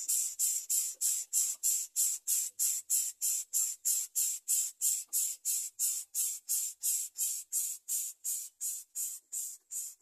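Greater coucal nestlings hissing in a steady rhythm, about three harsh, airy pulses a second.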